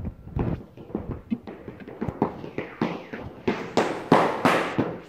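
Rapid, irregular series of sharp cracks and knocks from a decoy's hand-held noise-making distraction items aimed at a working dog, loudest about four seconds in.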